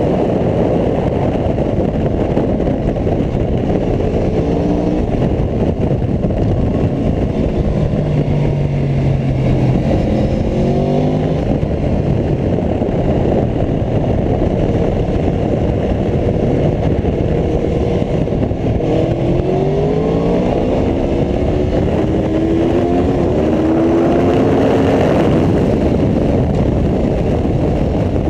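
Wind rushing over the microphone of a fast-moving motorcycle, with the Aprilia Tuono V4 1100 RR's V4 engine heard beneath it, its pitch climbing and dropping as it revs through the gears, most plainly about a third of the way in and again after the midpoint.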